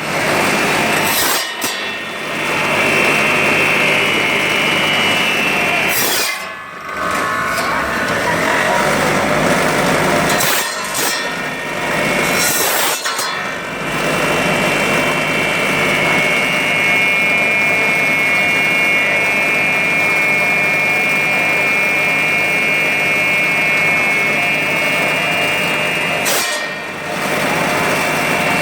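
Homemade motor-driven bone-cutting saw running with a steady high whine and a rough rasping of the blade cutting through bone. The sound drops off briefly a few times and comes straight back.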